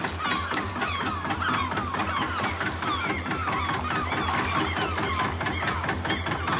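A flock of seagulls crying, many short overlapping calls, over the steady low throb of a boat engine.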